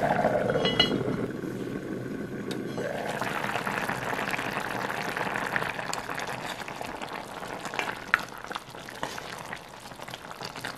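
A pot of butternut squash soup bubbling at a boil, with a sharp click about a second in as the lid goes on. Later a wooden spoon stirs the softened squash, knocking lightly against the pot a few times near the end.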